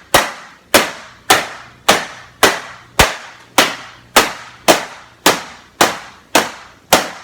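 A hammer striking a printer's parts in a steady rhythm: about thirteen sharp, loud blows, roughly two a second, each with a brief ringing tail.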